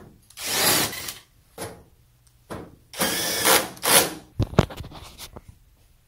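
Cordless drill-driver running in two bursts of about a second each, driving screws into the sheet-metal back panel of an electric range, followed by a few sharp clicks.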